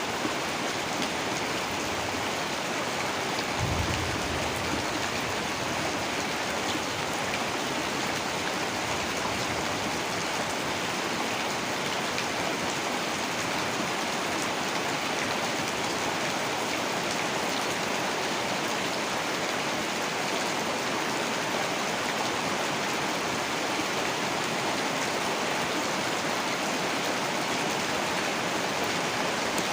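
Heavy rain falling steadily, a dense, even hiss of drops on surfaces. A brief low rumble comes about four seconds in.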